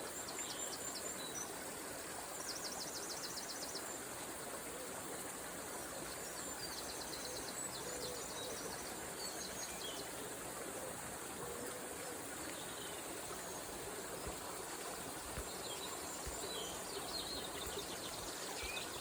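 River water flowing steadily, with small songbirds chirping and giving rapid trills several times over it.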